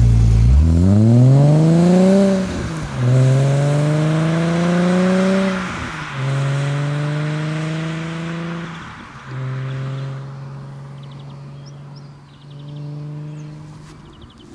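Alfa Romeo 156 GTA's 3.2-litre V6 exhaust as the car accelerates hard away through the gears: the revs climb, drop at each upshift about every three seconds, and climb again more slowly in each higher gear, the note fading as the car draws away.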